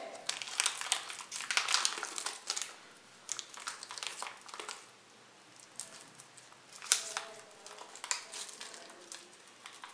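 Crackling of a biscuit packet's plastic and foil wrapper as hands pull it open. The crinkling comes in bursts: dense over the first two and a half seconds, sparser through the middle, and another burst about seven seconds in.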